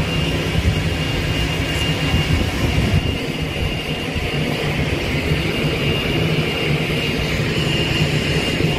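Steady rushing roar of water pouring through a dam just downstream, with no break or change.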